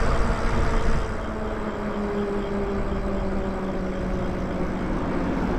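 Electric moto-style e-bike riding on pavement: wind rush and tyre noise under a steady motor whine that eases slightly in pitch as the bike slows.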